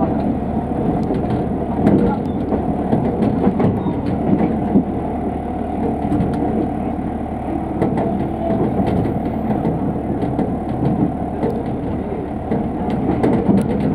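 Diesel railcar running along single track: a steady engine and running drone with a constant tone, and scattered sharp clicks of the wheels over the rails.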